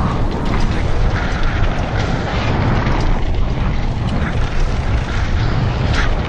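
Downhill mountain bike at speed on a dirt trail, heard from a helmet-mounted action camera: steady wind buffeting on the microphone over tyre noise on dirt, with scattered ticks and rattles from the bike.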